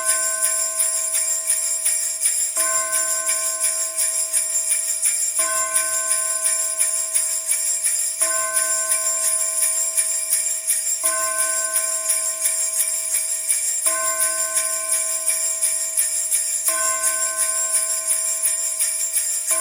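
Sleigh bells jingling continuously in a quick shaking rhythm. A church bell tolls about every three seconds, seven strokes in all, each ringing on until the next.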